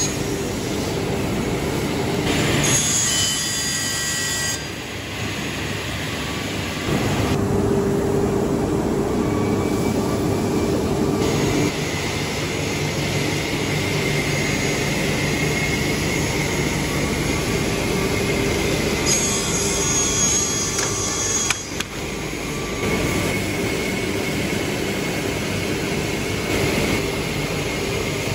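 Pinliang MJ45B sliding table panel saw running steadily, its circular blade cutting board panels as they are pushed through on the sliding table. The tone and level shift abruptly several times.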